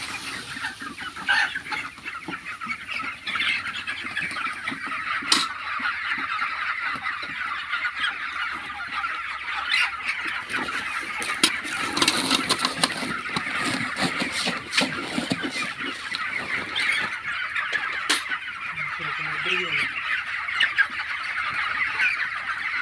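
A flock of four-week-old broiler chickens calling together: a dense, continuous chorus of overlapping cheeps and peeps, with a few sharp clicks.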